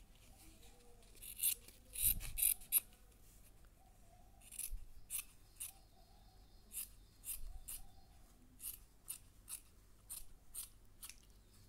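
Scissors cutting through a thin white sheet in a run of short, sharp snips. The loudest cluster comes about one and a half to three seconds in, then steadier snips follow at about two a second.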